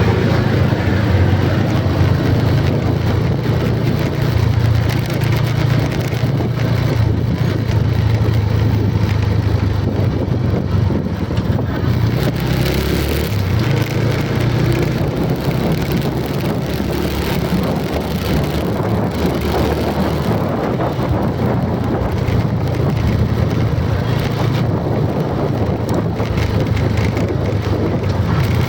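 Motor vehicle running steadily: a continuous low rumble with a noisy hiss over it, even throughout.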